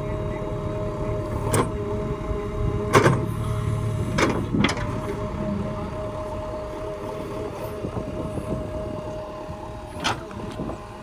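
A heavy diesel machine's engine running steadily, with a handful of sharp knocks or clanks, the loudest about three seconds in. The engine grows gradually quieter toward the end.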